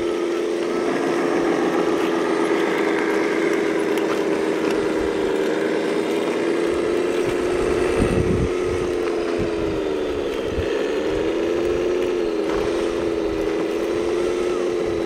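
Radio-controlled model vehicles' electric drive whining steadily. Its pitch dips and recovers twice in the last few seconds, and there is a short low thump about eight seconds in.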